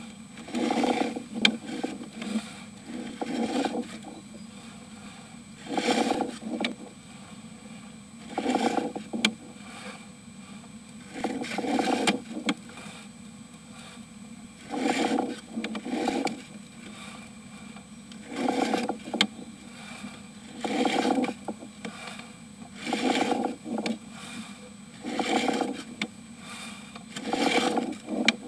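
Push-rod cable of a sewer inspection camera being fed into a drain pipe in short strokes: a scraping rub about every two seconds as the camera advances.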